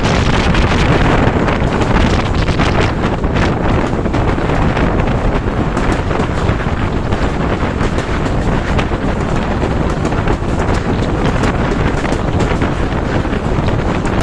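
Wind buffeting the microphone outside the window of a moving passenger train, over the steady rumble of the coaches running along the track.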